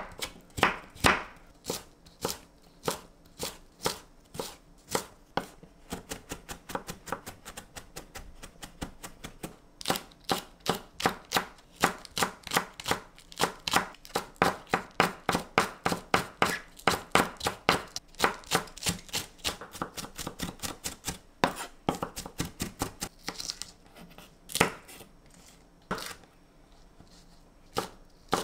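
Kitchen knife chopping vegetables on a wooden cutting board: firm carrot, then green onion tops, then green chili peppers. The strikes come slowly at first, then in a quicker run of about three to four a second through the middle, slowing again near the end.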